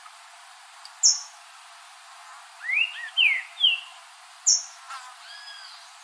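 Green-winged saltator (trinca-ferro) singing: a phrase of three slurred whistled notes, the first rising and the next falling, in the middle, with fainter whistles near the end. Two very short, very high sharp notes stand out about a second in and again about four and a half seconds in.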